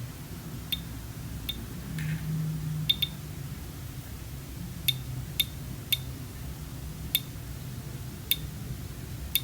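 About ten sharp, light clicks at uneven intervals from handling a small action camera and its plastic accessories, over a low steady hum.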